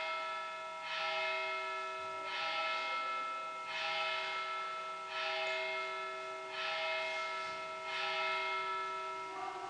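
Church bells ringing, a new strike about every second and a half, each leaving several tones ringing on and overlapping the next.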